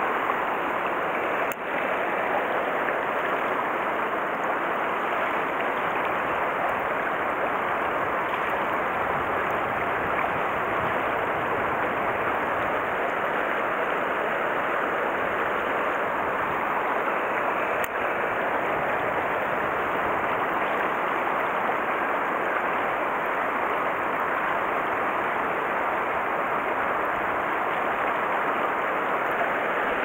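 Mountain stream water rushing steadily over rocks.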